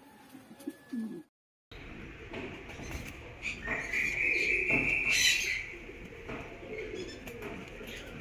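Pigeons cooing. The sound drops out briefly about a second in. Near the middle a louder, higher-pitched sound holds for about a second and a half.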